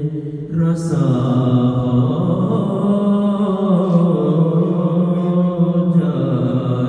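A man's solo voice chanting an Urdu naat (devotional poem) unaccompanied into a microphone, in long, drawn-out melodic notes, with a short break for breath about half a second in.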